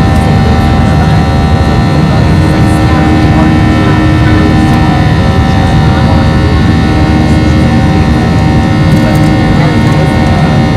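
Boeing 737-700's CFM56-7B turbofan engines at high takeoff power, heard inside the cabin. A loud, steady rush with many steady whining tones layered over it.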